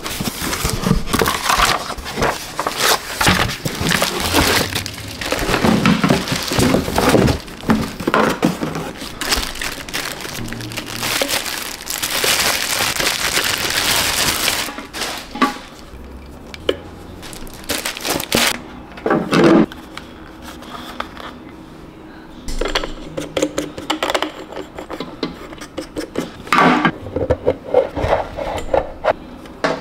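Plastic packaging crinkling and rustling as an item is unwrapped from a cardboard box. It is dense and loud for about the first fifteen seconds, then turns into sparser rustles and handling knocks.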